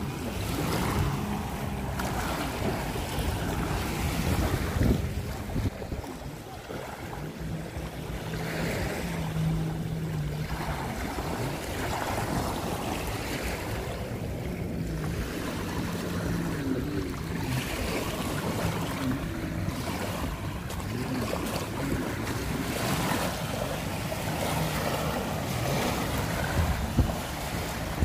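Small waves washing onto a pebble shore, with wind on the microphone, over the steady drone of a small fast motor craft's engine out on the water.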